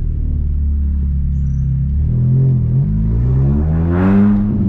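VW Gol G2's 1.0 8V four-cylinder engine running through an HKS sport muffler, holding steady revs, then revving up under acceleration from about two seconds in and easing off near the end.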